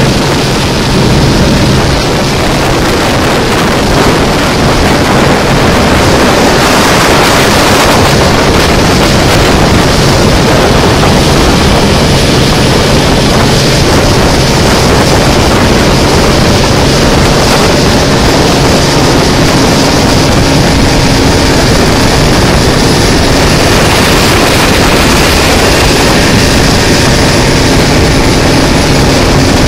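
Motorboat running at speed: a loud, steady rush of water churning along the hull, over a low engine hum, with wind buffeting the microphone.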